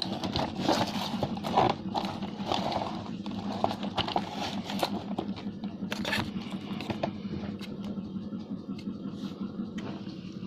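Small electric motor of a battery toy train whirring steadily, with plastic clicking and rattling over the first several seconds that then dies down.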